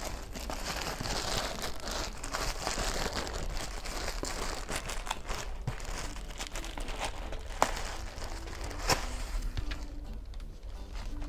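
Plastic parcel wrapping being crumpled and pulled open by hand, a dense crinkling rustle, with two sharp clicks in the second half.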